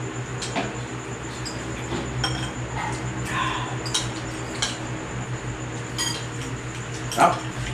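Spoons clinking and scraping against soup bowls as several people eat noodle soup, in scattered short clinks over a steady low hum.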